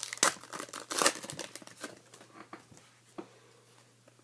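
A trading-card pack's wrapper crinkling and tearing as it is opened, busiest in the first two seconds, then dying down to a few light clicks and rustles of cards being handled.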